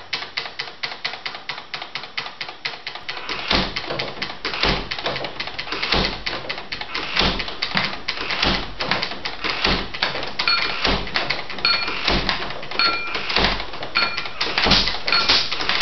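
A fast, steady rhythm of clicks and taps from everyday household sounds, computer keyboard keystrokes and light-switch clicks, edited into a beat with louder accents about once a second. From about ten seconds in, a short ringing ping joins the pattern, repeating about once a second.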